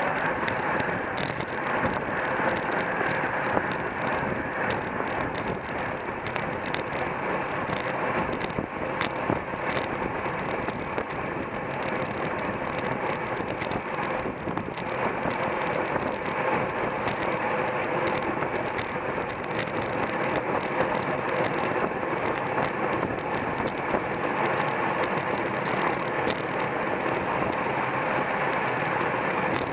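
Road bicycle rolling at race speed: steady tyre, chain and wind noise, with many scattered short clicks and rattles.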